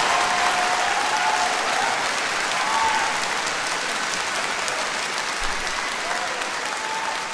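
Concert audience applauding at the end of a song, the clapping slowly dying down.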